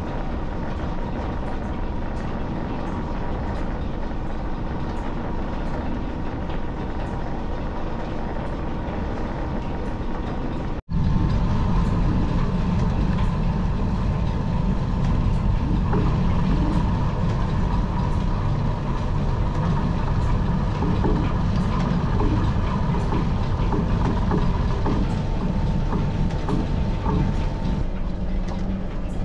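Belt-driven overhead lineshaft and lathe running steadily, a dense mechanical drone. About eleven seconds in the sound breaks off for an instant and comes back louder and deeper as a twist drill bores out a metal bushing on the lathe.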